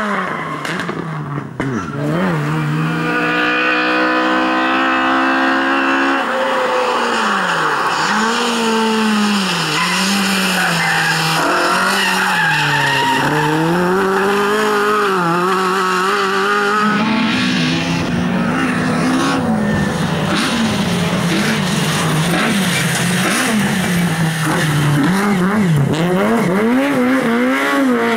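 Lada rally car engine revving hard, its pitch climbing steadily through a gear a few seconds in and then swinging up and down again and again as the throttle is worked, with tyres skidding.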